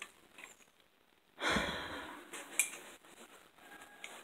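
A single audible breath or sigh about one and a half seconds in, fading over most of a second, then a faint click. Otherwise quiet.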